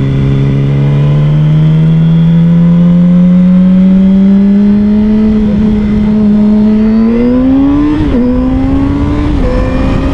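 Sport motorcycle engine heard from on the bike, its pitch climbing slowly as the bike speeds up. Then it revs harder and drops sharply twice as the rider makes two quick upshifts near the end.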